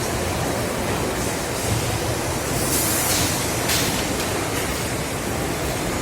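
Steady machinery noise of a factory production line, with two short hisses near the middle.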